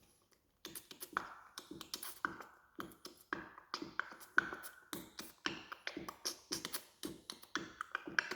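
Beatboxing: mouth-made percussion imitating a drum kit, a quick run of clicks, pops and hissing hi-hat sounds in a steady groove, starting about half a second in.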